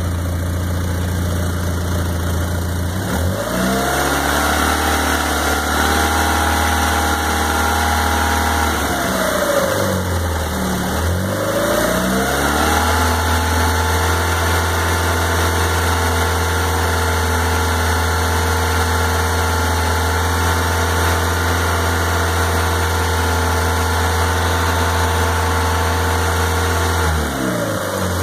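Chrysler 2.0L DOHC 16-valve 420A four-cylinder engine running with an unexplained noise the owner wants diagnosed. It idles briefly, is revved up and held at raised speed for several seconds, drops back, then is revved and held again for a long stretch before falling back to idle near the end.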